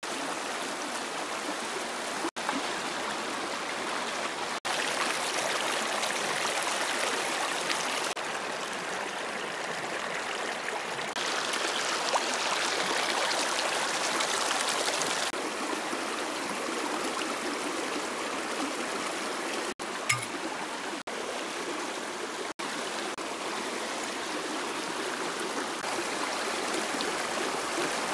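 River water rushing and splashing over rocks in small rapids, a steady rush that changes level at a few edits and drops out for a split second several times.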